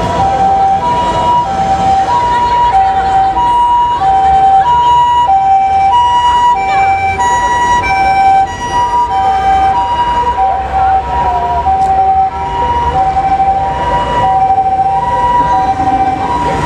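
Japanese ambulance siren sounding its two-tone hi-lo call, a higher and a lower tone alternating about every two-thirds of a second, over the rumble of street traffic.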